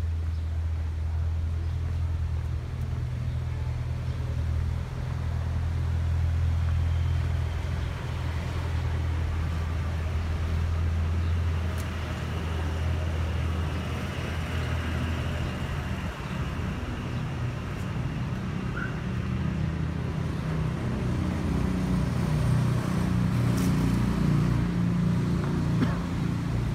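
Street traffic: a steady low engine rumble with vehicles passing along the road.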